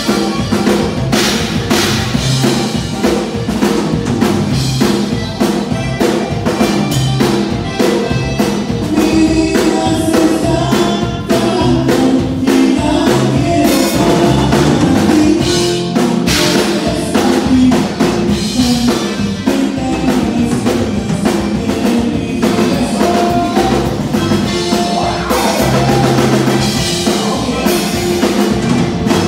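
Tejano conjunto band playing dance music with a steady drum-kit beat and a singer.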